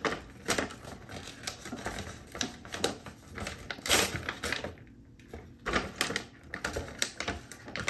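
Crinkling and crackling of a kraft-paper ration bag being handled as its pull-tab tear strip is ripped open, with a longer, louder rip about four seconds in.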